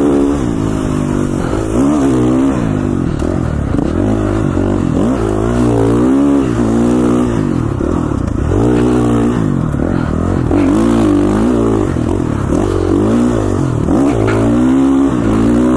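KTM 450 four-stroke single-cylinder dirt bike engine under way, its revs rising and falling over and over as the throttle is opened and rolled off.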